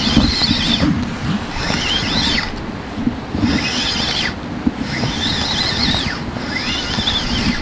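Spinning reel being cranked in about five short bursts while a hooked fish is fought on a bent rod. Each burst carries a whirring whine that rises and falls in pitch, over a low rumble of wind and handling.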